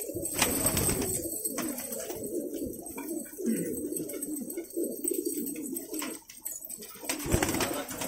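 A flock of domestic fighter pigeons cooing together in a small enclosed loft, many low overlapping coos forming a continuous murmur.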